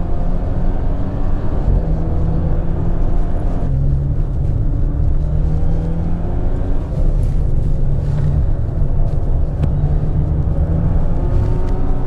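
Maserati car engine running hard under acceleration on track. Its pitch climbs in several successive runs, as when pulling up through the gears.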